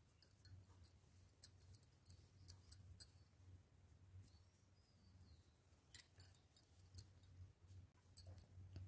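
Faint, scattered clicks of knitting needles tapping together as stitches are worked, bunched a second or two in and again about six seconds in, over a low steady hum.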